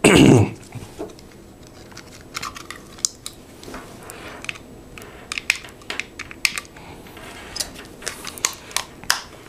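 Light plastic clicks and handling noise from the AC-adapter hidden camera DVR as its SD card is inserted, a dozen or more scattered small clicks.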